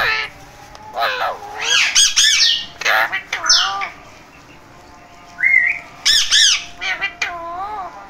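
Alexandrine parakeets calling in two bursts of loud squawks, about a second in and again around six seconds, with a short whistle in the quieter stretch between.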